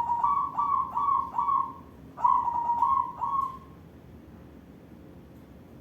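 A white barred zebra dove sings: two phrases of quick, repeated cooing notes, the second starting about two seconds in and ending a little past halfway.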